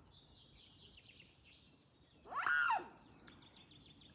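Birds calling: continuous high twittering of small birds, with one loud call that rises and falls in pitch about two seconds in.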